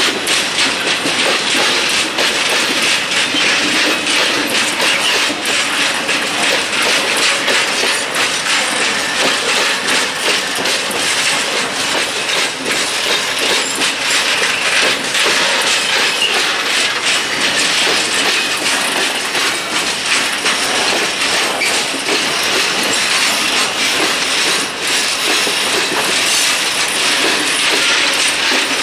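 Loaded open coal wagons of a freight train rolling past: a steady clatter of many wheels over the rail joints, with the rumble and rattle of the wagons.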